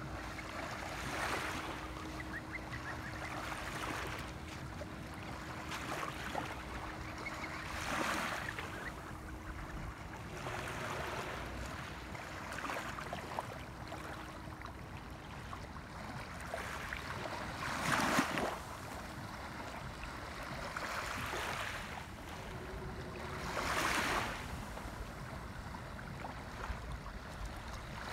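Small waves lapping on a sandy shoreline: a soft wash every few seconds, the loudest about eighteen and twenty-four seconds in, over a steady low rumble. A faint steady hum runs through the first half.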